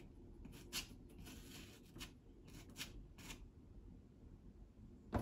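Soft pastel stick scratching across sanded LuxArchival pastel paper in a handful of short, faint strokes, as colour is laid on with the tip and side of the stick.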